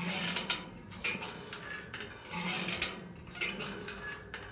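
Metal swing creaking and clinking in a steady back-and-forth rhythm, about once a second, as it sways with people on it.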